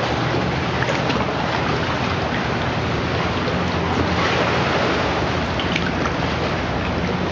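Sea water lapping and splashing around a kayak, with wind buffeting the microphone: a steady rushing noise with a low, even hum underneath.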